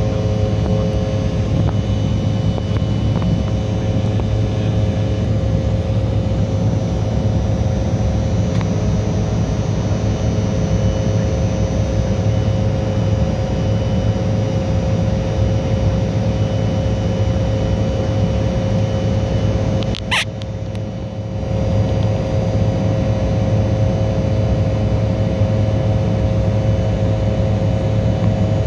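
Steady cabin drone of an Embraer E175 airliner in flight, heard from a seat beside the wing: its wing-mounted GE CF34-8E turbofan engines and the airflow, with a low hum and a steady higher tone. About two-thirds of the way through, a short sharp click and a brief drop in level.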